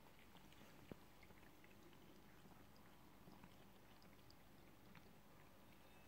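Very faint lapping of a Bengal cat drinking water from a drinking glass, heard as soft scattered ticks over near silence, with one light click about a second in.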